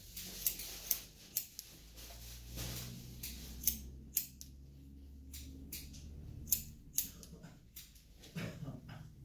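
Barber's scissors snipping hair that is held up in a comb: a string of short, crisp snips, irregular but about two a second, over a faint low hum.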